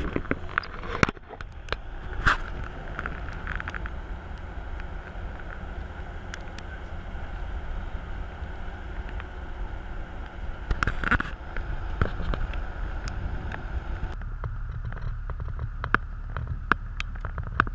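Steady road noise from a moving car, with scattered clicks and knocks. About 14 seconds in, the sound changes abruptly to a low rumble with sharp clicks.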